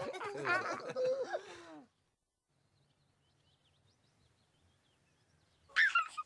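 High-pitched voices chattering and giggling, stopping about two seconds in; after a near-silent gap, a loud sudden voice-like sound comes in just before the end.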